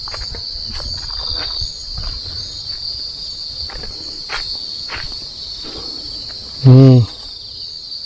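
Steady high-pitched chorus of night insects such as crickets, over footsteps and rustling through undergrowth. Near the end a man makes a short, loud hum or grunt.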